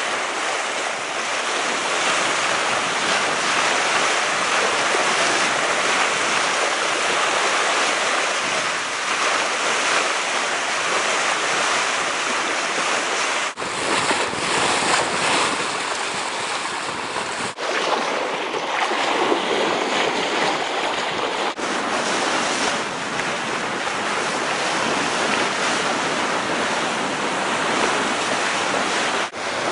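Sea water rushing and splashing along a sailing yacht under way, with wind buffeting the microphone: a steady hiss of wind and water, broken by a few momentary dips.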